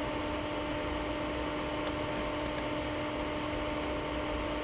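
Steady background hiss with a faint low electrical hum from the radio setup, in a gap between two-way radio transmissions.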